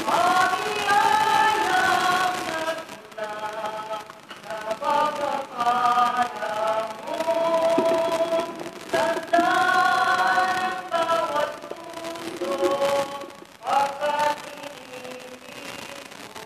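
Choir singing an offertory hymn during the preparation of the gifts, in phrases of held notes with short breaks between them, growing quieter toward the end.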